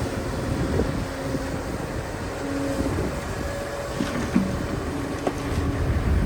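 Excavator's diesel engine running with a steady low rumble, short steady whining tones coming and going over it, and a few sharp metal knocks about four seconds in.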